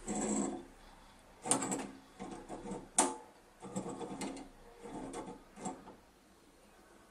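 Metal PCB fixture of a BGA rework station being worked by hand: the jig arms and clamp bracket slide along their rails in several short scraping, rattling bursts, with one sharp metallic click about three seconds in.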